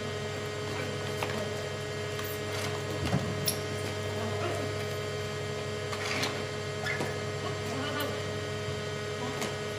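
A steady low hum with a steady higher tone above it, and scattered light knocks and clicks as insulated cold-room wall panels are pushed into place.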